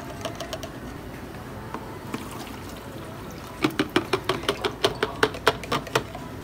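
Liquid poured through a plastic funnel into a plastic spray bottle, a soft steady trickle. Then, about three and a half seconds in, a fast, even run of sharp taps or clicks, about six a second, lasting roughly two and a half seconds.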